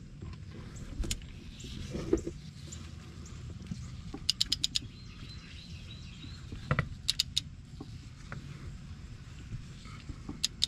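Ratchet wrench clicking as the 12 mm bolt of a serpentine belt tensioner is snugged up, in several short runs of quick clicks, over a steady low background rumble.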